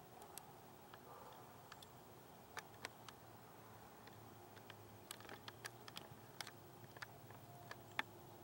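Near silence broken by scattered, irregular faint sharp clicks and ticks, more of them in the second half.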